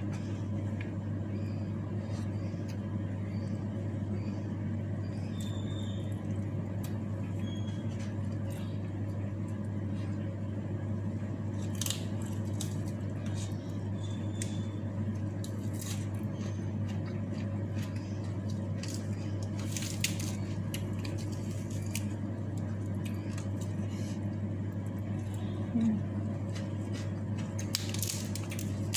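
Eating with the hands: soft squishing of rice and sambal, chewing of raw leafy vegetables, and a rustle of lettuce leaves being picked up near the end, over a steady low hum.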